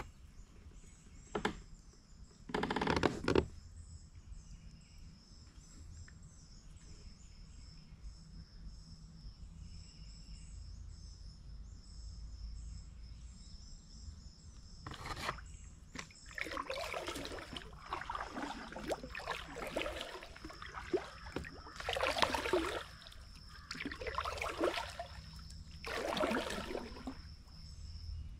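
Kayak paddle strokes dipping and splashing in river water: one early on, then a steady run of about seven strokes through the second half. Over it, the steady high-pitched drone of insects.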